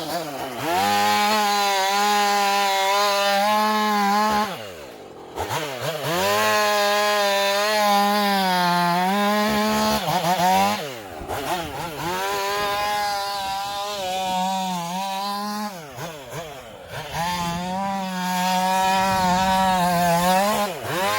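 Two-stroke chainsaw running at full throttle and cutting wood, in about four long bursts, with the engine note dropping and climbing back briefly between them.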